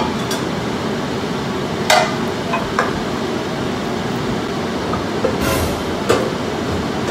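Steady rushing noise, like a running fan, with a few light knocks and clicks scattered through it.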